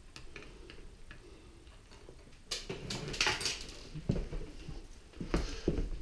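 RC boat kit parts handled during assembly on a workbench: light clicks and taps, a rustling about two and a half seconds in, then a few louder knocks.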